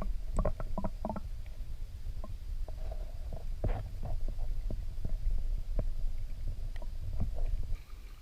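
Muffled low underwater rumble picked up by a GoPro in its waterproof housing, with faint irregular clicks and taps scattered through it.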